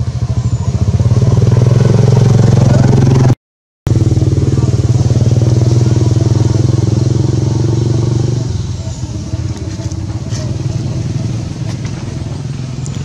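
An engine running steadily at an even pitch. The sound cuts out for a moment about three and a half seconds in, then gets quieter about eight and a half seconds in.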